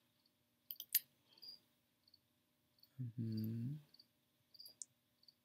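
Faint high chirps repeating about twice a second, a cricket in the background. A few sharp mouse clicks come about a second in, and a short low hum from a man's voice comes about three seconds in, the loudest sound here.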